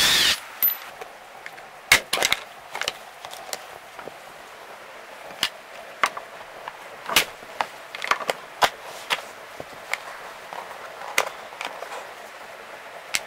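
A power drill or driver runs briefly and stops, then scattered sharp clicks and knocks of hand tools and loose metal parts being handled while the car seat is unbolted.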